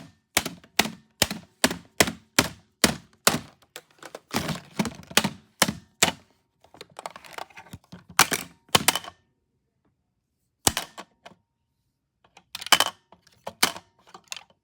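An alarm clock being smashed with repeated hard blows, about two a second for the first six seconds, then a pause and a few scattered strikes.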